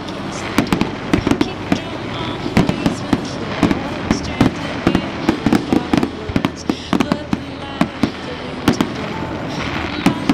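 Aerial fireworks bursting overhead: a rapid, uneven string of sharp bangs and crackles, several a second, over a steady rumbling hiss.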